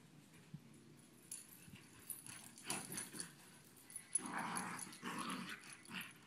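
Two dogs playing, with short rough growls coming in bursts: one a little under three seconds in, and louder ones about four to five and a half seconds in.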